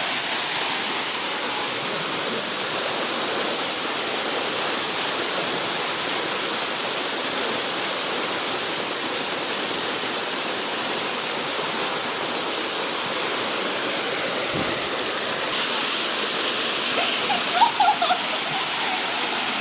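Steady rushing of a waterfall pouring into a creek pool, with a brief sharper sound near the end.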